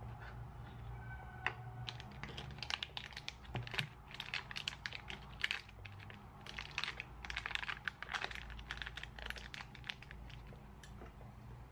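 Foil wrapper crinkling and crackling in a dense run of short clicks as it is folded and pressed closed around a block, with a knife cut on a wooden cutting board near the start.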